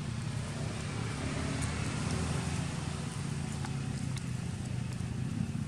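A steady low mechanical hum, like a running motor, with a few faint clicks over it.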